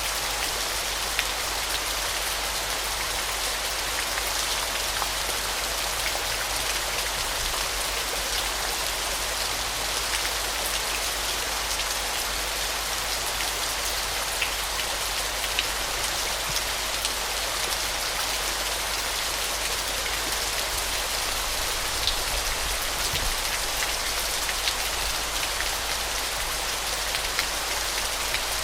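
Falling water: a steady hiss of spray and splashing, sprinkled with sharp little drop ticks.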